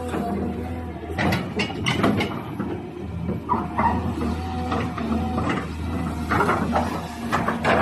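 Caterpillar 320 excavator at work: a steady diesel engine hum under a hydraulic whine, with squeaks and repeated metallic clanks from the arm and bucket.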